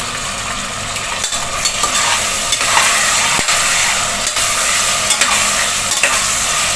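Chicken, onion, tomato and spices frying and sizzling in hot oil in a stainless steel pressure cooker while being stirred with a slotted steel spatula, which scrapes and clicks against the pot. The sizzle gets a little louder about one and a half seconds in as the masala is turned over: the bhuna stage of frying the masala.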